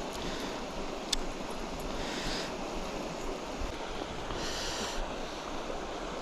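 Steady rush of river water flowing, with a sharp click about a second in and two short hissing sounds.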